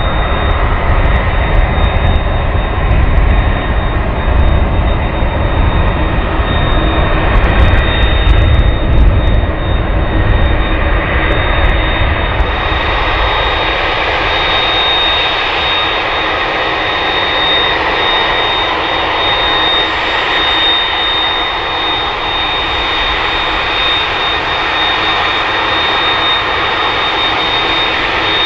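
Jet engines of a three-engined widebody airliner running at taxi power: a steady noise with a high whine over it. The low rumble drops away about twelve seconds in.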